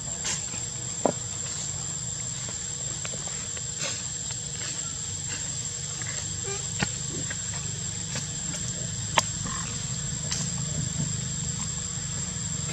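Steady high-pitched insect drone, with a low rumble beneath and three short sharp clicks.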